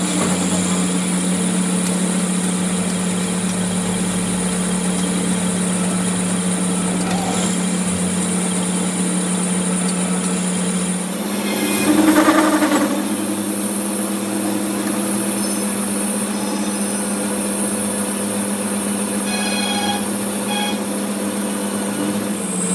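A machine running steadily with a constant hum. Its pitch drops slightly about halfway through, where a brief louder rush comes in.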